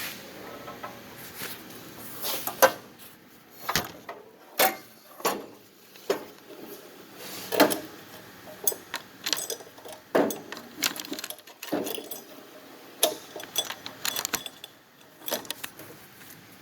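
Irregular clicks, clatters and knocks of the cut plastic pieces of an Xbox 360 controller being handled and set down.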